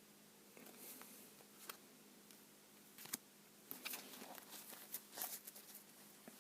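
Faint rustling and light clicks of trading cards being handled, a few scattered sounds at first and a busier stretch after about three and a half seconds.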